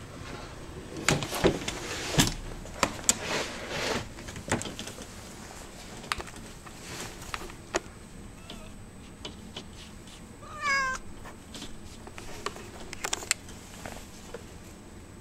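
A domestic cat shut in a pet carrier meowing once, a wavering cry about ten seconds in, wanting to be let out. Sharp clicks and rattles, the loudest sounds, come in the first few seconds and again near the end.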